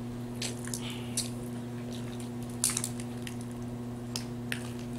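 Wet squishing, clicking and crackling of boiled seafood (crawfish and shrimp) being peeled and eaten by hand, in scattered short snaps, over a steady low hum.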